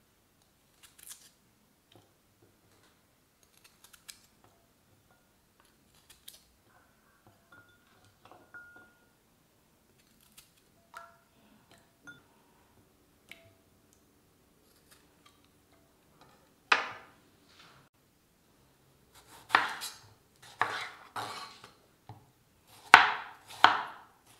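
Kitchen utensils and dishes being handled: faint scattered taps and clinks, then a louder ringing clink about two-thirds through and a run of louder knocks and clinks near the end.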